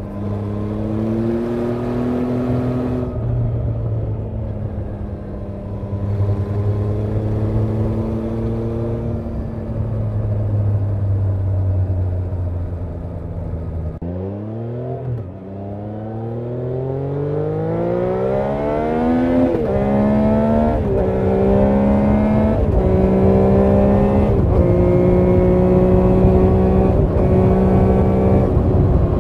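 Triumph Trident 660's inline three-cylinder engine and exhaust, heard from the bike while riding. It cruises steadily with small throttle changes, then about halfway through the note dips and climbs in a long rising pull under acceleration. It then steps through several short dips in pitch as the bike shifts up into top gear, ending louder and steady.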